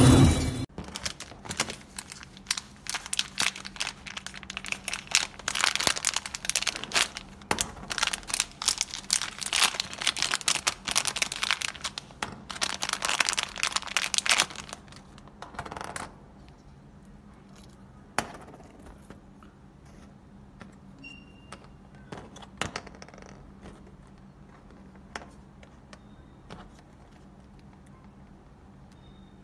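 Crinkling and crackling of a foil-and-plastic zip pouch being handled and opened, dense for roughly the first half, then giving way to sparse, quieter small clicks and rustles as the small parts are handled.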